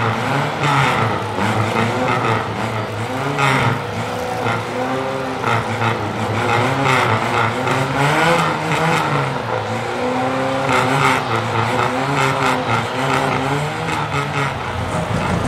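Racing car engine revving over and over, its pitch rising and falling repeatedly without settling.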